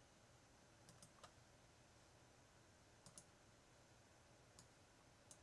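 Faint computer mouse clicks, about seven short single clicks and pairs spread over a few seconds, against near silence.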